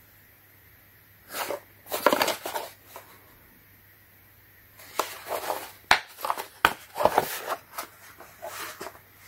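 Hard HDPE plastic torque wrench case handled and turned over in the hands, with rubbing and knocking. About six seconds in come a few sharp clicks as it is unlatched and the lid is opened.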